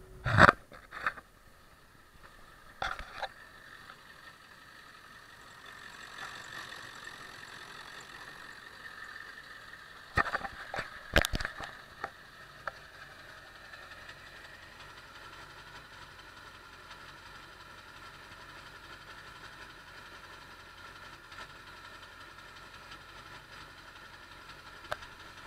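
A few loud knocks in the first seconds and again about ten seconds in, and a steady 7.3 L Power Stroke V8 turbo-diesel idling from about six seconds in. The owner says an idle hiccup is still there after swapping the ICP sensor.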